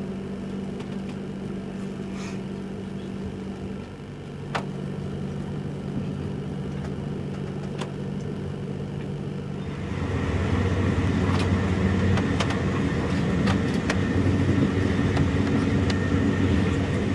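High-speed electric train heard from inside the passenger carriage, running at speed with a steady rumble of wheels on rail and a few faint clicks. About ten seconds in it becomes louder and rougher.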